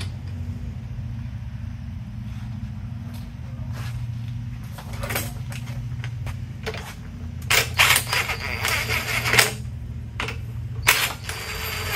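Cordless impact wrench running the carrier bearing-cap bolts into a Dana 60 axle housing in several short rattling bursts, starting about seven and a half seconds in, to snug them before torquing. Before that, a few light clinks of the caps and bolts being fitted by hand, over a steady low hum.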